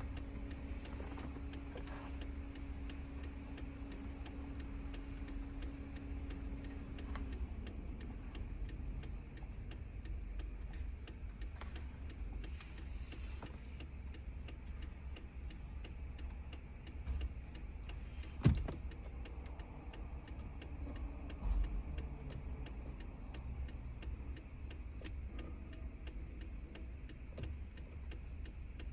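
Steady mechanical ticking, with a low steady tone for about the first seven seconds and one sharp click about two-thirds of the way through.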